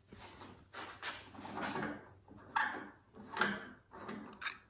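Scattered rustling, light scraping and soft knocks of hands handling a brass oxygen regulator clamped in a steel bench vise.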